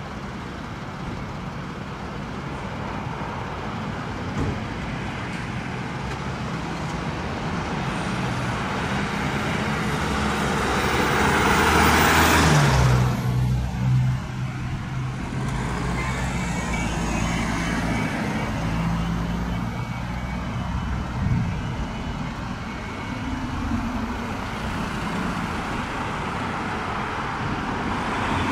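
Diesel engines of several fire engines running as they pull out of the station bays and line up. About twelve seconds in, a vehicle passes close by on the road, its noise swelling and then falling away quickly.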